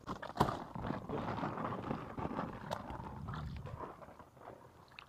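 A sharp knock about half a second in, then rustling and sloshing of hands and feet moving through shallow water and wet leaves, dying down after about three and a half seconds.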